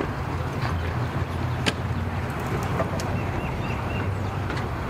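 An engine idling with a steady low hum, with a few sharp clicks or knocks, one louder about two seconds in.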